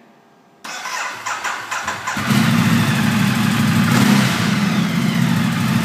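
Ducati Multistrada 1200's L-twin engine being started with the electric starter: the starter cranks for about a second and a half, then the engine catches about two seconds in and settles into a steady idle.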